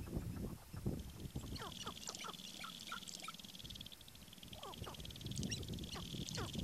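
Sharp-tailed grouse calling: many short, quick cackling notes that drop in pitch, with a steady high buzzing rattle under most of it.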